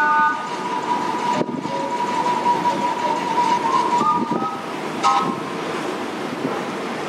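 Steam whistles of the paddle steamer De Majesteit: one long held note for about three seconds, then a few short higher notes around four and five seconds in, over a steady rush of wind and water.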